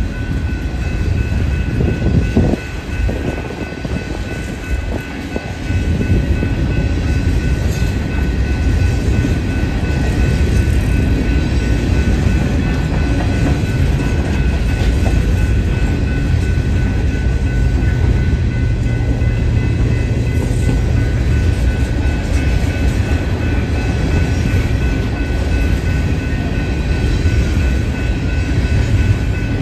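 Coal train's hopper cars rolling past on steel wheels: a steady low rumble and clatter on the rails, with thin, steady high tones over it. The sound dips briefly a few seconds in, then holds steady.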